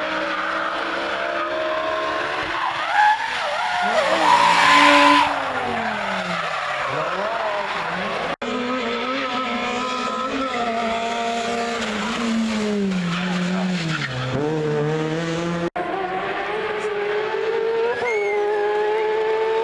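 Race car engines revving up and dropping back through a hairpin, with a loud burst of tyre squeal and skidding about four seconds in as a car drifts. The sound cuts twice to other cars taking the bend, the last a buggy's engine revving high.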